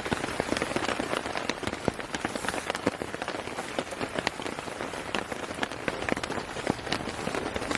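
Steady rain, with many separate drops hitting at irregular moments over an even hiss.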